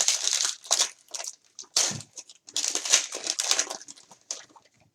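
Foil trading-card pack wrapper being torn open and crumpled by hand, crinkling in irregular bursts that fade out near the end.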